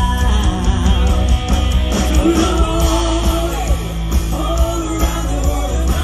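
Live rock band playing at full volume: electric and acoustic guitars, bass and drums, with lead vocals singing over them.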